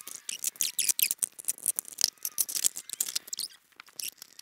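Hard plastic fan housings and a battery-box cover being handled and pulled apart: a quick, irregular run of clicks, scrapes and rattles, with a short lull near the end.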